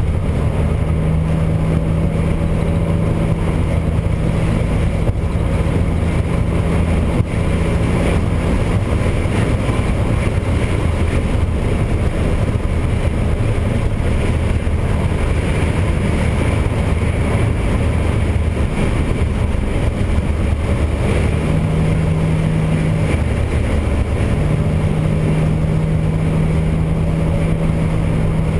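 1961 Chevrolet Corvair Rampside's rear-mounted air-cooled flat-six running steadily at freeway cruising speed, heard inside the cab together with road noise. A low steady tone in the engine hum fades away through the middle and comes back near the end.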